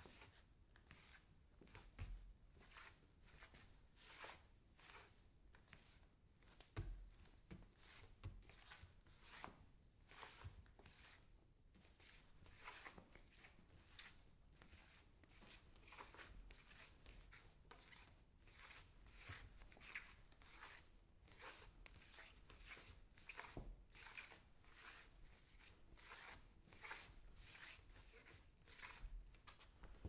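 Bare feet scuffing and shuffling on a wooden floor: a quiet, steady run of short soft scrapes, two or three a second, with a few heavier low thumps of footfalls.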